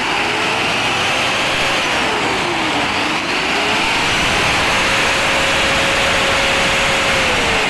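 A bus's rear-mounted diesel engine running and being revved: the pitch climbs, drops about three seconds in, climbs again and holds, then starts to fall near the end, over a steady hiss. The engine is running again after a long repair.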